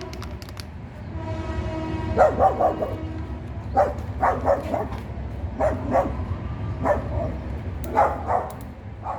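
A dog barking repeatedly in short bursts of two or three barks.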